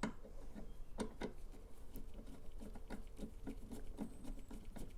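A quick, irregular run of light clicks and taps, a few a second, as the pollen filter cover and surrounding trim are handled and refitted by hand.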